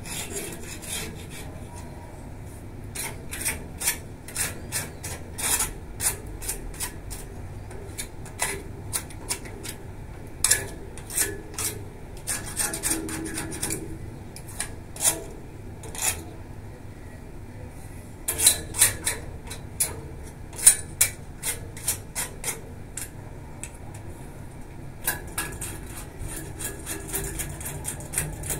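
Short rasping hand strokes against the bars of a metal balcony railing, coming in irregular clusters with pauses between.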